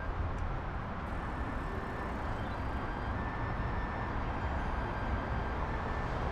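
Steady outdoor background noise with a low rumble of distant road traffic.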